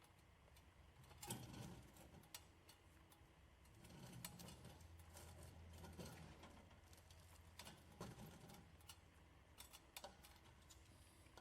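Near silence: faint scattered clicks and light knocks over a low hum.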